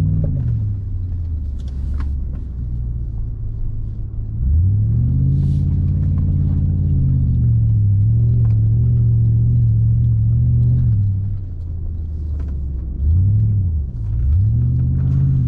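Four-wheel-drive engine under load climbing a soft sand dune, revving up hard about four seconds in and holding high for several seconds before dropping back. A short blip of revs follows, and it revs up again near the end.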